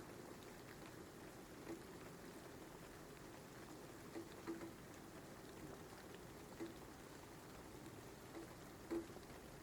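Faint, steady rain with occasional louder drops tapping every second or two.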